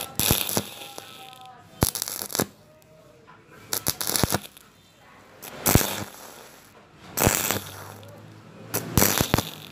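Stick-welding arc on thin steel pipe, crackling and sizzling in short bursts of about half a second, roughly every one and a half seconds, as the electrode is struck and lifted again. This stop-start stitch technique keeps heat low so the thin pipe wall doesn't burn through.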